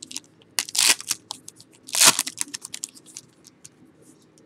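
Foil wrapper of a Panini Crown Royal football card pack torn open and crinkled, with two louder rips about one and two seconds in, then light clicks and rustles as the cards are handled.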